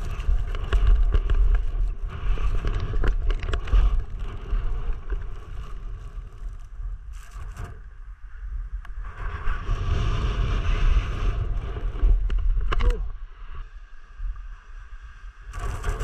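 Strong wind buffeting the camera's microphone, a deep rumble that rises and falls in gusts.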